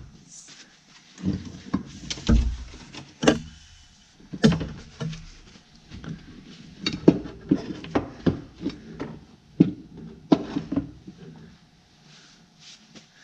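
Irregular knocks, clicks and rustling of the reassembled VW Autostick shift lever and its parts being handled, with the loudest knocks about two, four and a half, seven and ten seconds in.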